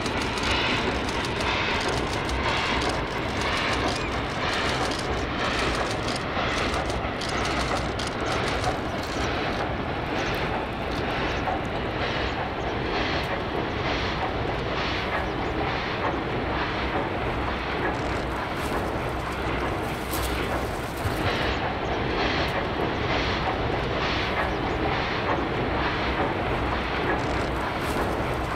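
HG/S class superheated 2-8-0 steam locomotive working a freight train, its exhaust chuffing steadily at about two beats a second over a continuous rumble.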